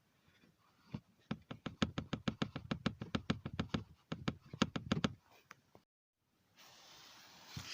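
Rapid run of sharp knocks from the dashboard of a Toyota Corolla Verso, about six a second for some four seconds and then stopping. This is the knock in the dash that the owner is chasing.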